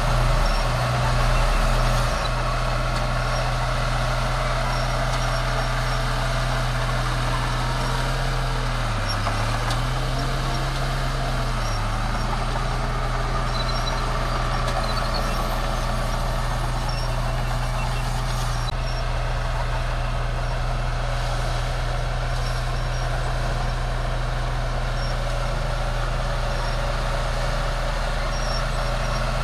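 Heavy diesel engine of a bulldozer running steadily, with two short surges at the start. Its pitch dips twice briefly about a third of the way in, as it takes load.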